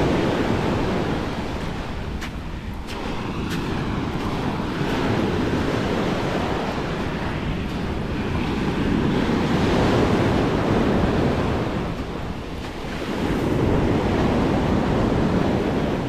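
Sea waves breaking and washing up the beach, the surf swelling and easing several times, with wind buffeting the microphone.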